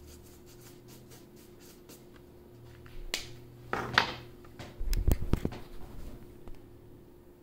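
Felt-tip marker coloring on paper: quick, regular back-and-forth strokes, then a few louder scratchy strokes and a cluster of low knocks on the table about five seconds in.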